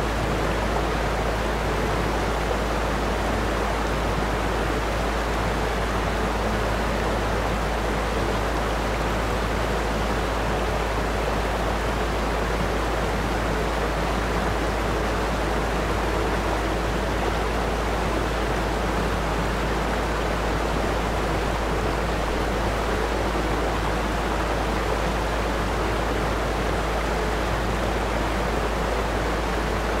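Steady rushing noise, even and unchanging, with faint low tones underneath.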